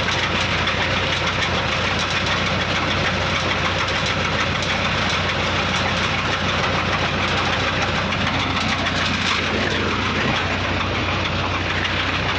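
Borewell drilling rig running steadily: its JCB engine drives the drill pipe turning in the borehole, a constant engine hum with a low drone.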